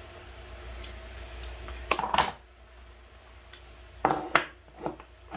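Small hand tools clicking and tapping: a precision screwdriver and its bits put back into a plastic bit case and tools set down on a wooden desk. The sharp clicks come in two loose clusters, one about one to two seconds in and another about four seconds in.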